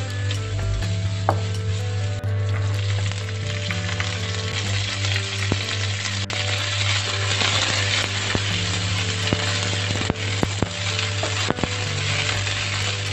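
Vegetables sizzling in a hot nonstick wok as they are stir-fried, first julienned carrots and then thin green stems, with short scrapes and taps of a wooden spatula against the pan.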